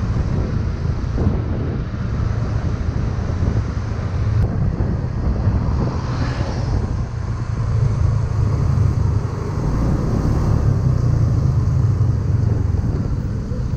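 Motorcycle under way on the road: steady wind buffeting the microphone over the engine and tyre noise, with a brief hiss about six seconds in.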